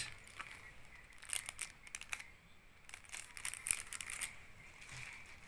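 Clear plastic sleeve crinkling and an old paper banknote rustling as they are handled, in irregular crackles.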